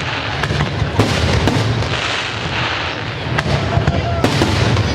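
Fireworks display: aerial shells bursting in rapid, irregular bangs over a continuous low rumble of echoing booms, with crackling stars sizzling between the bangs.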